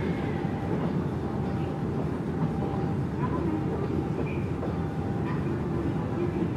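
Steady low rumble of airport apron noise around a parked airliner at the gate, from aircraft and ground equipment running, with a few faint short sounds above it.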